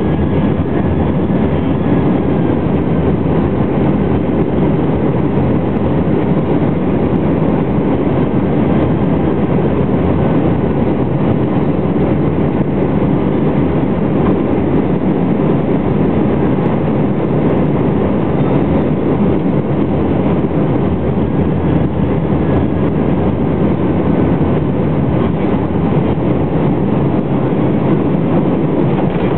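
Steady, loud rush of engine and airflow noise inside the cabin of an MD-11 airliner on final approach with flaps extended, with a faint steady whine on top.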